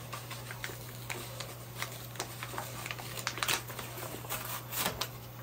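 Plastic clamshell packaging with a cardboard backing being pried and torn open by hand: a run of crinkling crackles and sharp clicks, busiest in the second half.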